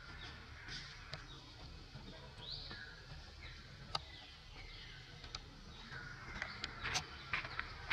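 Birds calling outdoors, short falling chirps repeated every second or two, with a few sharp clicks mostly in the last couple of seconds.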